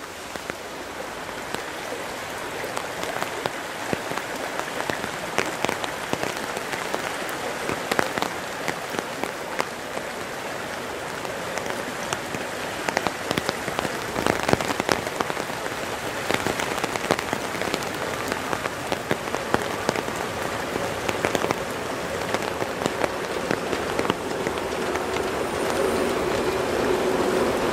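Rain falling, with many drops ticking close by over the steady rush of a river, slowly growing louder. Near the end a steady low hum comes in as the steam train approaches.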